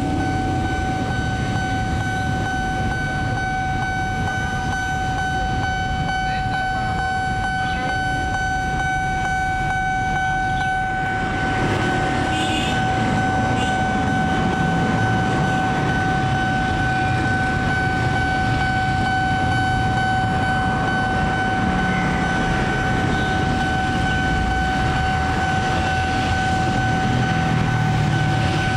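KRL Commuter Line electric train approaching along the track, a steady low rumble growing slightly louder about a third of the way in, with a steady high-pitched tone throughout.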